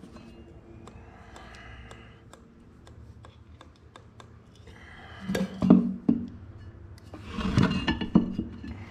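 Metal parts and hand tools clinking and scraping, with scattered sharp clicks. There are louder clatters about five seconds in and again near the end.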